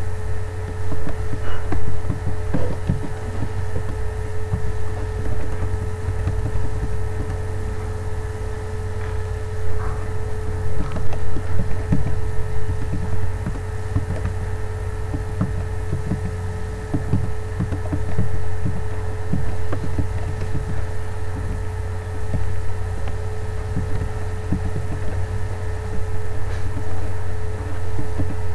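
A loud steady low electrical hum with a steady higher tone above it, and soft irregular taps of computer keyboard keys being typed.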